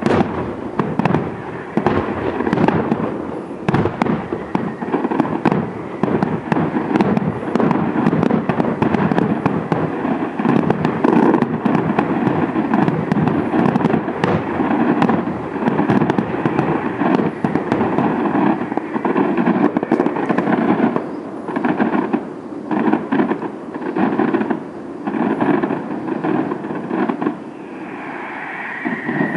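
Aerial fireworks display: a rapid, continuous barrage of overlapping bangs and crackling from bursting shells, easing slightly near the end.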